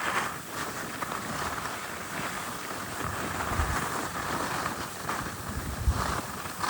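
Steady rushing hiss of skis sliding over snow, mixed with wind on the microphone, with two brief low thumps about three and a half and six seconds in.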